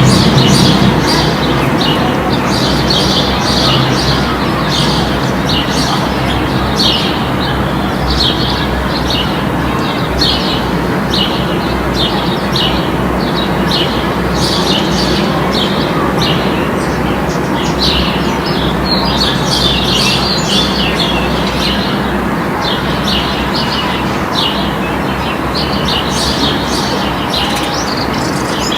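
Park ambience: small birds chirping over and over, short quick calls, above a steady low background rumble.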